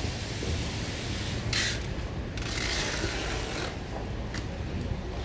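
Mechanical rattling and clicking over a steady low rumble of market background noise, with a short burst of hissing about a second and a half in.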